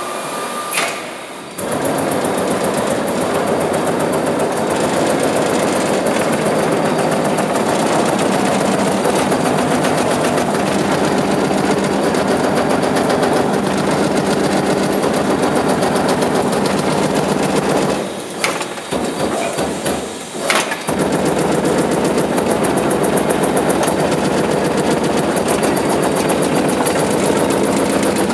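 Amada EMZ 3610NT CNC turret punch press punching sheet metal at high speed: a rapid, continuous rattle of punch strokes. The strokes start about two seconds in, stop for a few seconds about two-thirds of the way through with a couple of sharp clanks, then carry on.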